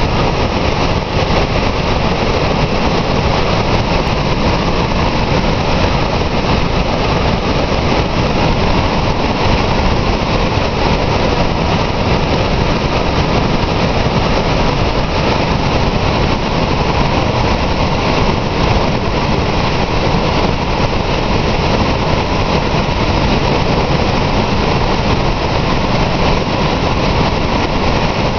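Lower Falls of the Yellowstone River heard from its brink: the loud, steady rush of a large volume of water plunging over the lip, unbroken throughout.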